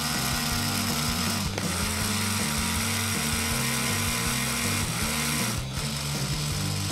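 Small electric motor of the 1975 LEGO 182 battery train whirring with a steady whine. It cuts out briefly twice, about a second and a half in and again near the end, and spins back up each time. Background music plays under it.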